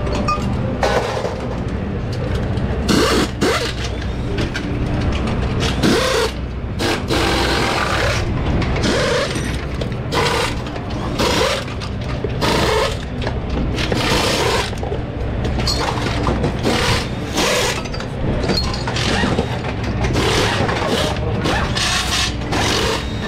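Metal engine parts and hand tools clinking, clicking and scraping irregularly as the rocker arms and valve springs of a Funny Car Hemi engine are taken apart, over a steady low hum.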